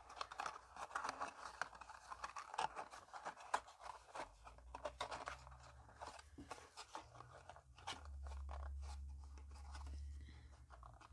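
Cardstock being handled: the paper zombie insert and coffin-shaped box rustling, scraping and ticking as they are fitted together, with a faint low rumble for a couple of seconds near the end.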